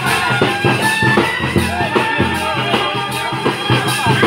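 Music with a drum beat under held, sustained melody notes.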